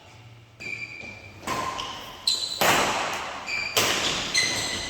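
Badminton rally in an echoing hall: several sharp hits of rackets on the shuttlecock, with shoes squeaking briefly on the court between them.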